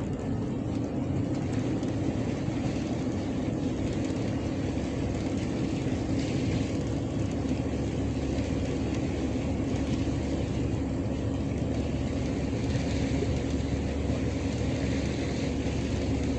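Tour boat's engine running steadily under way, a constant low drone with a steady hum.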